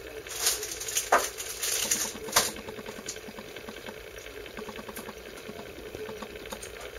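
Small motor of a rotating display turntable running with a steady hum and fine irregular clicking, with a few louder knocks in the first two and a half seconds.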